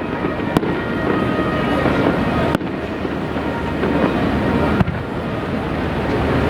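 Fireworks display going off: a dense, continuous crackle and rumble of bursting shells, with a sharp bang about half a second in.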